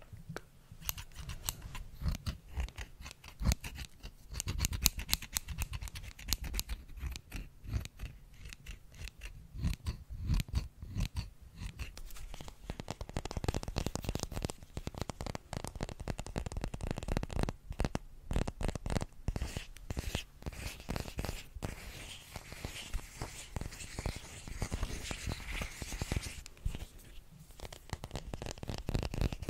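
Scissors snipping and clicking close to the microphone in quick, repeated strokes; from about twelve seconds in, the sound turns to fingernail tapping and scratching on a magnet, with a scratchy rustle under the taps.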